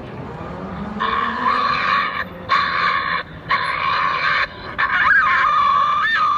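Recording of a shot badger screaming as it dies, played back: a run of long, shrill screams that start about a second in, with short breaks between them. The screams are the sign of a badger wounded but not killed outright in a cull shooting.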